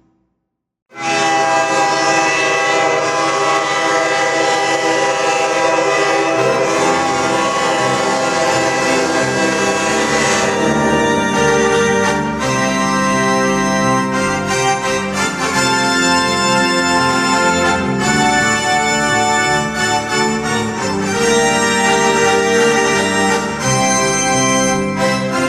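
Hockey goal horn, a recording of a BC Rail K5H five-chime train horn, sounds one long steady chord. It starts abruptly about a second in and stops about ten seconds in. Organ music comes in under the horn about six seconds in and carries on after it stops.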